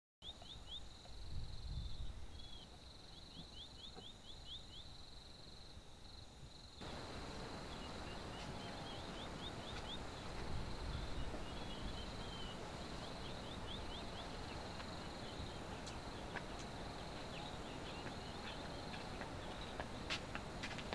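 Rural hillside ambience: a steady high insect drone with bursts of quick, repeated bird chirps over a low rumble of background noise that gets louder about seven seconds in. A few footsteps near the end.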